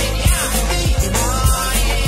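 Pop song with a drum kit keeping a steady beat, kick drum hits recurring under pitched melodic lines.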